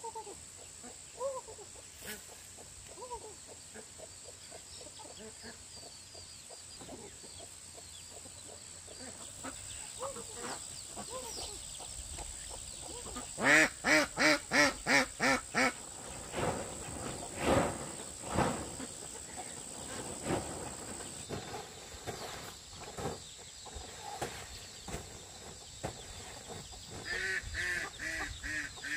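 Farmyard ducks and chickens calling: scattered quacks and clucks, with a loud run of about eight quick calls, roughly four a second, about halfway through, and another quick run near the end.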